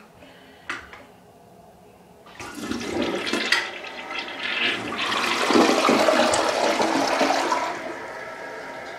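2010 Contrac Cody toilet flushing: a click about a second in, then water rushing and swirling down the bowl for about five seconds. Near the end it drops to a steady, quieter hiss of water.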